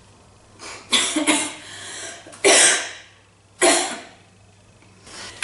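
A girl sneezing three times in quick succession, each a sudden loud burst that fades quickly, about a second apart, with a softer sound just before the first.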